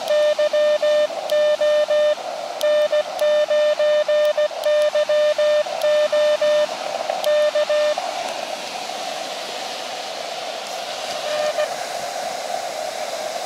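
Elecraft KX2 transceiver's Morse sidetone, a steady beep near 600 Hz keyed into dots and dashes with a paddle key as a CQ call is sent at 16 words per minute. About eight seconds in, the keying stops and the receiver's narrow-filtered band hiss takes over, with one short beep near the end.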